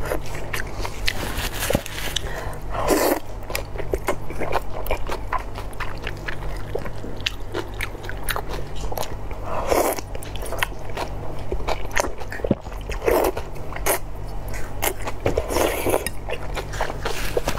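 Close-miked eating of slippery cold noodles with shredded cucumber and carrot: wet chewing and small mouth clicks throughout, broken four times by a loud slurp lasting about half a second. A steady low hum runs underneath.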